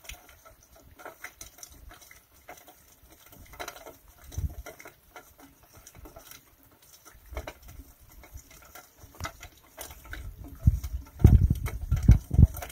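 Small trickle of meltwater running through wet mud, making a light, irregular pattering and trickling. Louder low rumbles come near the end and are the loudest part.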